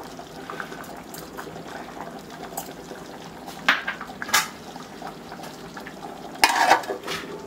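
Pot of fish curry simmering on a gas burner, a steady hiss of the flame and bubbling. A metal ladle clinks against the aluminium pot a few times: twice near the middle and in a short cluster near the end.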